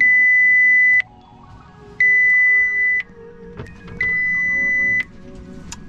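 Standard Horizon GX2400E VHF marine radio beeping after power-up: three long, high, steady beeps, each about a second long and a second apart, with fainter tones in the gaps.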